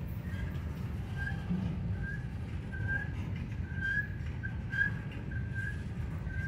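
Covered hopper cars of a slow freight train rolling past, a steady low rumble of wheels on rail, with a run of short high-pitched squeaks at one pitch, about one or two a second, louder in the middle.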